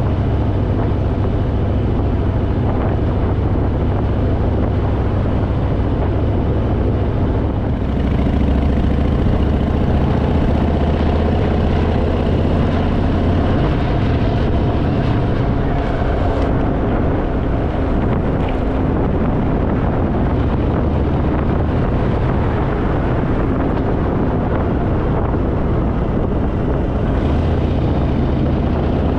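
Harley-Davidson Fat Boy's V-twin engine running steadily while riding along the open road, getting slightly louder about eight seconds in.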